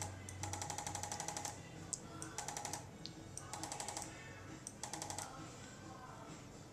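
Handheld chiropractic adjusting instrument firing rapid trains of clicks, about ten a second, in four short bursts of roughly half a second to a second each.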